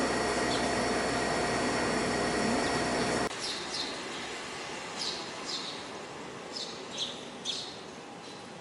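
Eurasian tree sparrows chirping, short falling chirps repeated about eight times in the second half. Before them a steady hiss with a hum runs and cuts off abruptly about a third of the way in.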